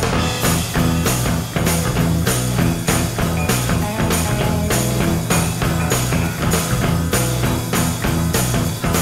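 Background rock music with a steady beat, guitar and drums.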